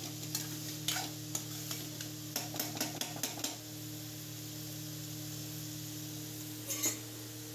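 Spatula scraping and knocking in a metal kadhai as boiled eggs are stirred through thick masala, a rapid run of clicks for about the first three and a half seconds, then two more knocks near the end. Under it the masala sizzles steadily in the pan.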